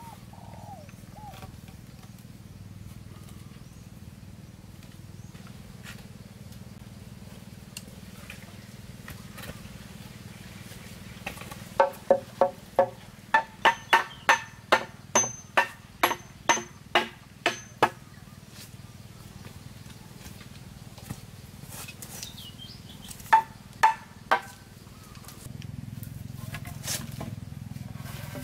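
Quick, evenly spaced blows of a hand tool on wood, about two a second for some six seconds, each with a short ringing note, then three more blows a few seconds later.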